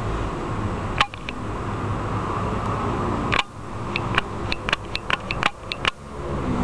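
A run of sharp clicks and taps, about ten in quick succession in the second half, with a single click about a second in, over a steady low hum.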